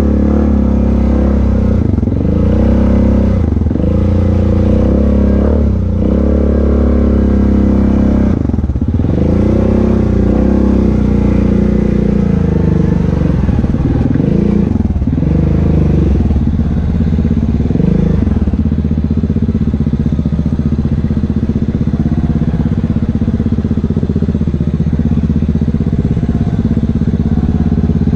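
ATV engine running close by, revving up and down over and over as the throttle is worked, then holding a steadier pitch for the last third.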